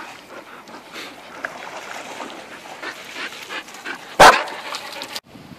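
Dog whining and yipping in short repeated calls, with one short, very loud bark about four seconds in.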